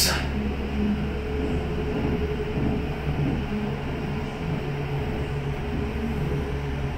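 Kone hydraulic elevator car travelling upward, heard from inside the car: a steady low hum of the running drive with a thin, steady tone above it.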